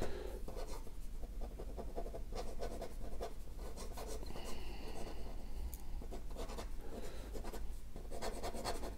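Ballpoint pen scratching across drawing paper in quick, repeated sketching strokes.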